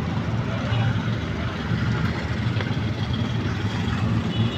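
A steady low engine-like rumble that holds an even level throughout.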